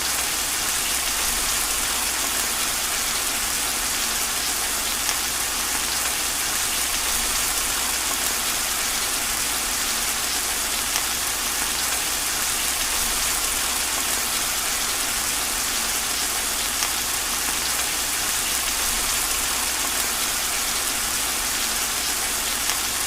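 Heavy rain falling steadily, a dense, even hiss with a few brief, sharper drop clicks.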